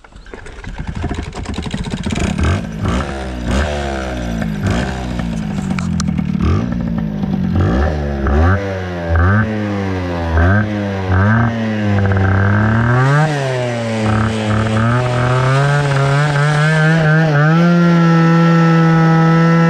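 MBK 103 MVL moped's tuned 50cc two-stroke engine with an MR expansion-chamber exhaust pulling away and riding. Its revs rise and fall again and again, then hold a steady high note near the end.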